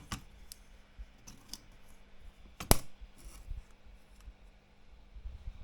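Light clicks and ticks from the metal parts of a 1941 Erika 5 portable typewriter being worked, as the telescopic paper support and folding panel are moved; one sharp snap, the loudest, comes a little before the middle.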